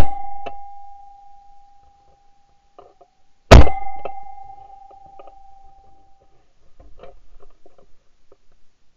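Two shotgun shots at pigeons, one right at the start and one about three and a half seconds in. Each is a sharp blast that dies away over about a second, followed by a steady ringing tone that lingers for a few seconds.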